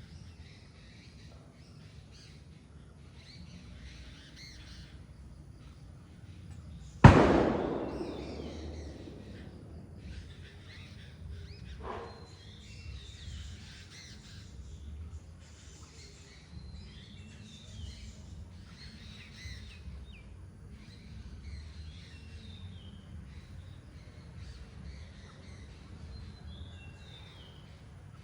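Birds chirping, many short high calls throughout over a low steady rumble. About seven seconds in, a single sudden loud bang that dies away over about two seconds, and a much fainter knock a few seconds later.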